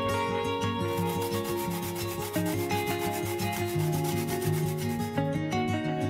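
Garlic cloves rubbed hard over a perforated stainless grater lid, a rapid run of rasping strokes that stops about five seconds in. Acoustic guitar music plays underneath.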